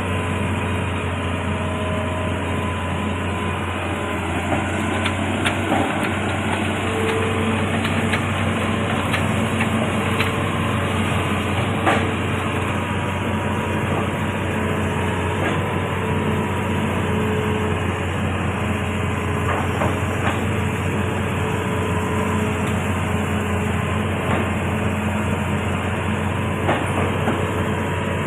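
Amphibious excavator's diesel engine running steadily with a deep low hum, with occasional knocks and clanks from the machine at work, the sharpest about twelve seconds in.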